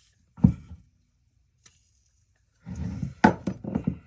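Knocks and clatter of hand tools and a carburetor body being handled on a workbench: one sharp knock about half a second in, then a short run of rattling knocks near the end.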